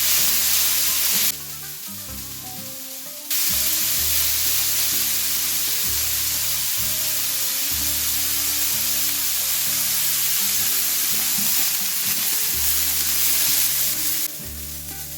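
Chopped vegetables (green chili, yard-long beans and carrot) sizzling in sesame oil in a frying pan as they are stirred. The sizzle drops away for about two seconds a little after the start, and again near the end.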